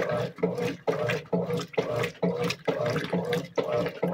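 Top-loading washing machine agitating: water sloshing in the tub in a steady rhythm of surges, about two a second, as the agitator swings back and forth.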